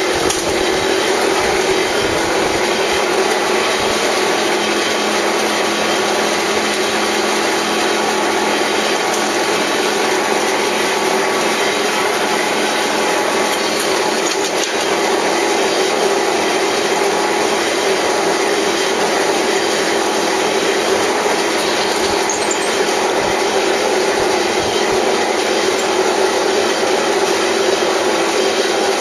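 Clay brick extrusion machine running steadily, with an even mechanical noise that does not let up.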